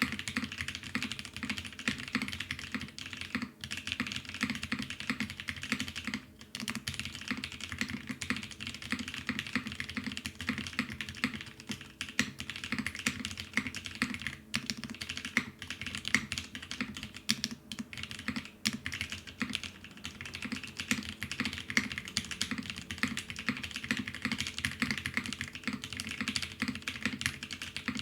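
Continuous fast typing on a gasket-mounted mechanical keyboard with lubed NK Cream linear switches, a polycarbonate plate and GMK keycaps, with a brief pause about six seconds in.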